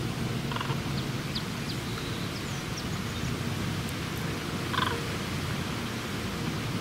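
Steady low wind rumble, with a few faint chirps from small birds and two short bird calls, the second, about five seconds in, the loudest.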